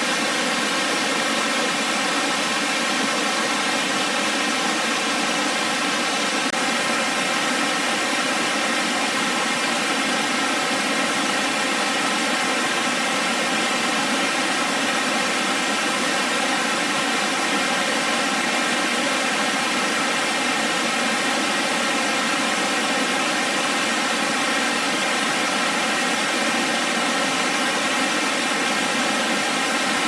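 Water pouring down a cascading three-tiered waterfall: a steady, unbroken rush with no change in level.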